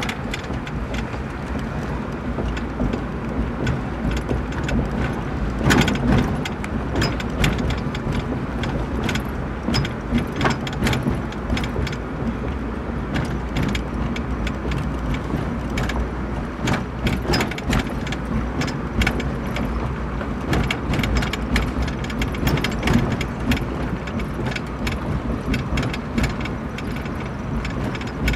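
A vehicle driving slowly, heard from inside the cab: a steady low engine and road rumble with frequent small clicks and rattles.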